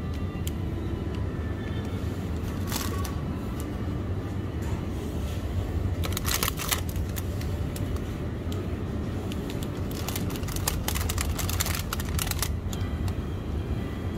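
Plastic ice cream wrappers crinkling as packets are picked up and handled: brief rustles about three seconds in and at six seconds, then a longer stretch of crinkling about ten to twelve seconds in. A steady low hum runs underneath.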